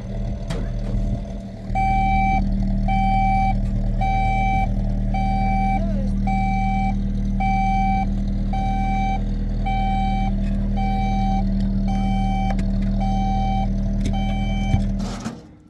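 Vehicle engine running steadily while a reversing alarm beeps about once a second, starting about two seconds in; engine and beeper cut off together just before the end.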